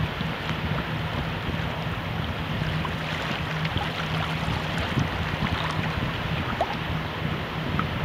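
Shallow incoming tide rippling and lapping close to the microphone, with small plips and trickles of water, under steady wind rumbling on the microphone.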